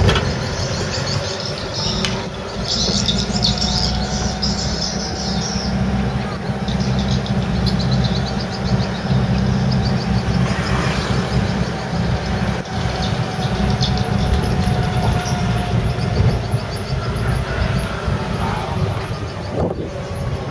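Steady engine and road noise heard from the open rear of a moving songthaew pickup truck, with birds chirping in the first few seconds.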